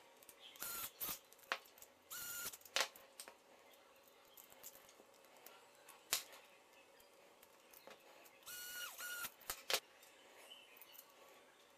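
Small-parts assembly: ball-joint rod ends being screwed onto a 3D-printed RC suspension arm. There are three short steady whirs, about half a second each, from the small driver, with sharp clicks and taps of the plastic and metal parts between them.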